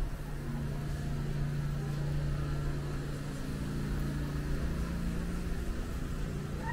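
Outdoor background sound: a steady low hum with a rumble beneath it.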